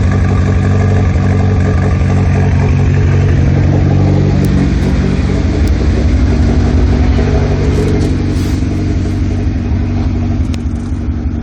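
Car engine idling with a misfire on cylinder 4, the fault logged as code P0304. It runs steadily throughout, easing a little near the end.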